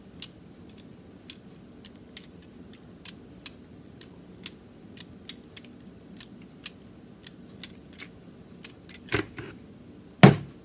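A bar of cold-process soap being beveled and stamped by hand: many light, sharp clicks and scrapes, about three a second, then two heavier knocks near the end.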